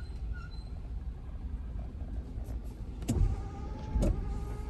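Windscreen wiper sweeping across the wet glass, heard from inside the car cabin. There is a knock about three seconds in, then a steady motor whine, and a second knock about a second later, over a low steady rumble.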